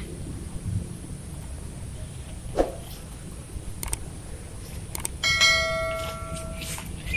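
Subscribe-button animation sound effect: a couple of mouse clicks, then a bright bell-notification ding that rings out for about a second and a half before fading. Steady outdoor ambience underneath, with a bird chirp at the very end.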